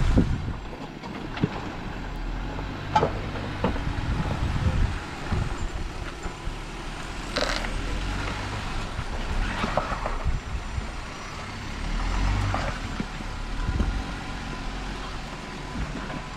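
Off-road 4x4's engine running low and steady while crawling the rock ledge, with several sharp knocks scattered through, around three, seven and a half, ten and twelve and a half seconds in.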